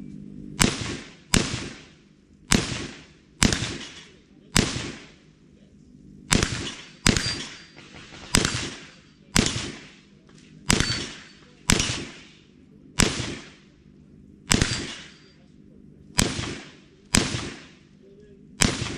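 Single gunshots, about sixteen, fired one at a time at a steady, unhurried pace of roughly one a second, each trailing off in echo.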